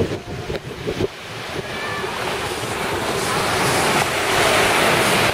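Surf breaking and washing up a sandy beach, the noise of the wave swelling over several seconds to its loudest near the end. Wind buffets the microphone at the start.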